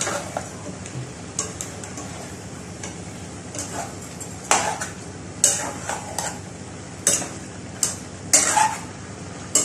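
Metal spatula stirring chicken pieces in a nonstick pot: irregular scrapes and clinks of metal against the pot, louder past the middle, over a steady low hiss.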